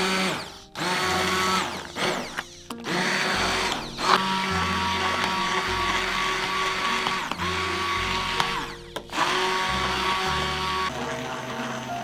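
Immersion blender motor running in several bursts with brief stops, its blade puréeing cooked broccoli, potato and carrot in a stainless steel pot.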